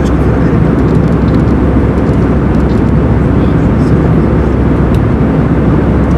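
Airbus A320 cabin noise in flight, heard from a window seat: a steady low rumble of airflow and jet engines that holds the same level throughout.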